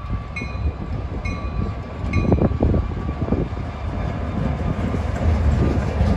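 Freight train passing with a heavy, steady rumble. A bell dings about twice a second for the first two seconds.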